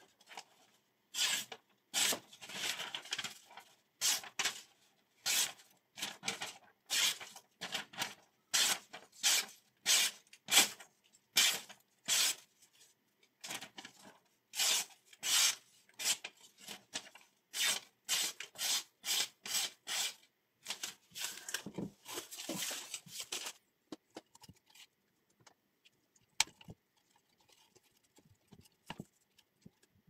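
Folding knife blade slicing through a sheet of paper again and again, each cut a short swishing rasp, about two a second: a paper-slicing test of the freshly sharpened edge. The cuts stop well before the end, leaving faint handling sounds and one sharp click.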